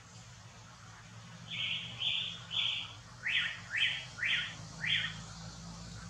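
A bird calling: three short, buzzy notes followed by four quicker notes that each slide upward in pitch, all within about three and a half seconds.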